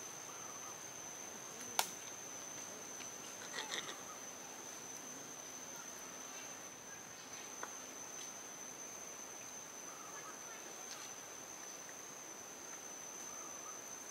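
A steady high-pitched insect drone goes on throughout, with a faint outdoor hiss beneath it. A single sharp click comes about two seconds in, and a few brief faint chirps follow about a second and a half later.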